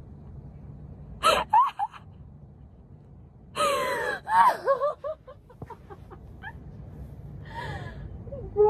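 A young woman's helpless, gasping laughter in three breathless fits, with sliding high-pitched squeaks and sharp intakes of breath between short pauses.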